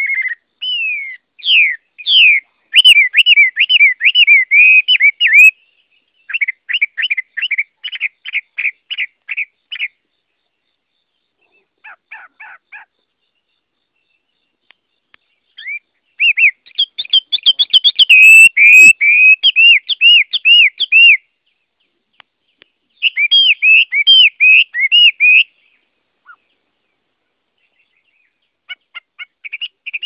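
Chinese hwamei (Garrulax canorus) singing: phrases of rapid, repeated whistled notes a few seconds long, with short pauses between them. The longest and loudest run comes in the middle.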